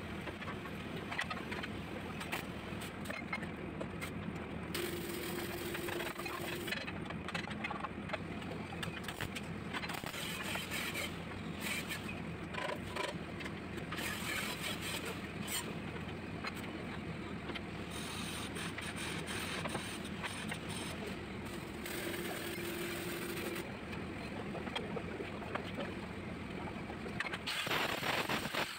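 Steady background noise of a welding workshop, machines and ventilation running, with scattered short crackles and two brief steady hums, about five and about twenty-two seconds in. Near the end a louder hissing noise comes in for about a second.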